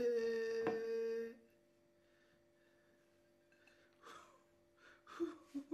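A man humming a long, steady "mmm" for about a second and a half while tasting cake, then quiet apart from a few faint small sounds near the end.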